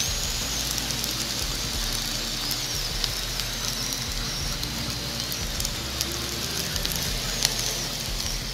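Egg-coated stuffed crepe parcels shallow-frying in hot oil in a non-stick pan: a steady sizzle with scattered small crackles and pops of spitting oil.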